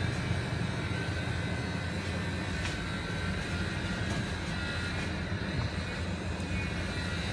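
Steady low rumble and hum of background noise, with a few faint clicks.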